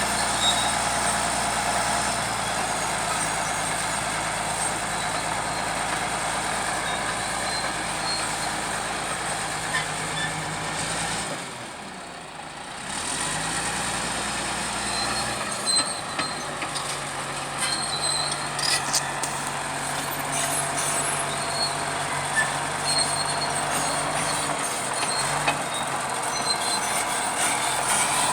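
Bulldozer's diesel engine running steadily, its pitch shifting as it works and dropping away briefly about halfway through. Short knocks and clanks ring out in the second half.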